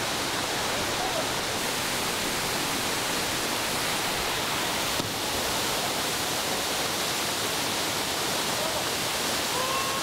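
The steady rushing of the 22 m Pliva waterfall, falling water crashing into the pool below, unbroken and even in level.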